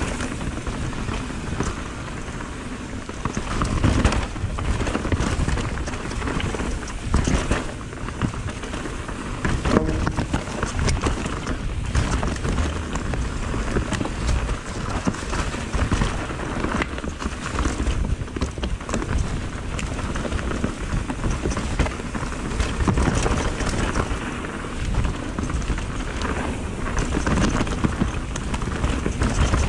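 Mountain bike descending a dirt singletrack: tyres running over dirt, leaves and roots, with the frame, chain and parts rattling and clattering over the bumps and wind rushing over the camera's microphone.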